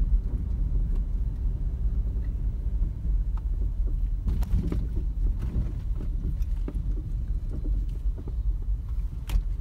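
Low, steady rumble of a car's engine and tyres heard from inside the cabin while driving slowly, with a few short knocks or rattles about four seconds in and again near the end.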